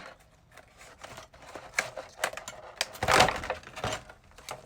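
A trading-card box and its packaging being handled: scattered light clicks and taps, with a louder rustle about three seconds in.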